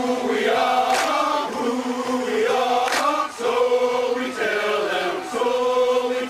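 Soundtrack music of a choir chanting in unison, in repeated held phrases about a second long, with a couple of sharp percussive hits.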